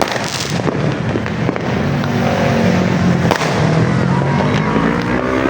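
New Year's fireworks going off continuously, a dense run of pops and crackles over a steady low drone.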